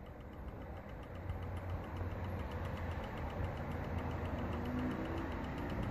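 Warmink Dutch clock movement running, its escapement ticking in a quick, even rhythm over a steady low hum.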